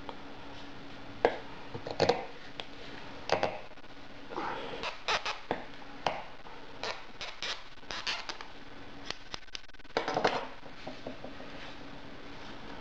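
Rotary leather hole-punch pliers worked on a leather knife sheath: a run of irregular sharp metal clicks and snaps as the jaws close through the leather and the tool is handled.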